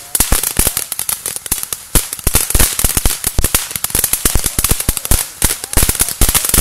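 Ground fountain firework spraying sparks: a steady high hiss under a rapid, irregular run of sharp crackling pops, several a second.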